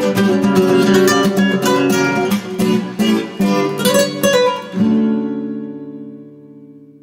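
Nylon-string flamenco guitar played fast, with rapid strummed and plucked passages, ending about five seconds in on a final chord that rings on and fades away.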